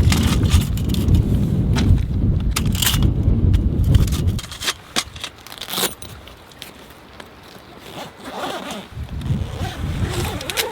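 Strong gusty wind buffeting the microphone, with sharp snaps and rattles scattered through it. The gust drops away about four seconds in and picks up again near the end.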